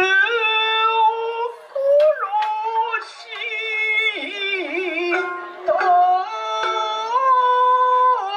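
A high voice chanting kabuki-style in long, drawn-out sung phrases, the notes wavering and sliding between pitches, with a few sharp clicks.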